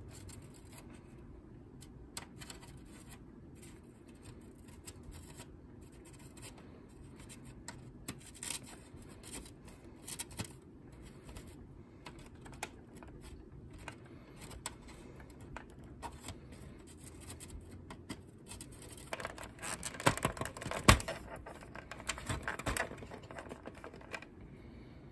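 Soldering iron desoldering braided ground wires from a CRT monitor's metal shield: scattered small clicks and scrapes of the tip and braid against the metal, over a low steady hum. A louder cluster of clicks and scrapes comes about twenty seconds in, as the braids are worked free.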